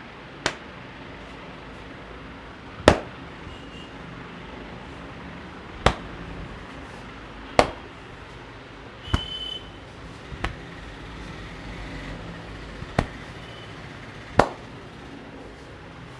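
Hand slaps on the head during an Indian head massage: eight sharp smacks, spaced one to three seconds apart.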